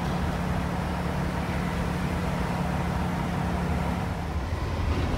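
Steady engine and road drone of a moving RV, heard from inside the cab, with a steady low hum that drops out near the end.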